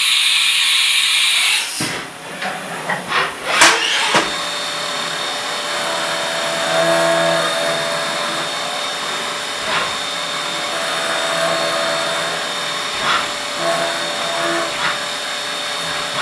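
CNC milling machine working an aluminium part: a loud hiss for the first two seconds, a run of clicks and knocks, then the spindle running with a steady high whine and lower hums that come and go as the tool moves over the part.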